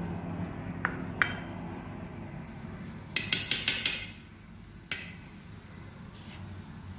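Kitchen utensils clinking against dishes: two light clicks, then a quick run of about six clinks, then one more a second later.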